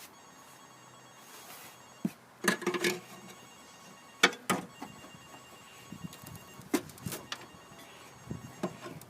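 A phone ringing with a faint ringtone, over a series of sharp knocks and clanks, the loudest about four seconds in.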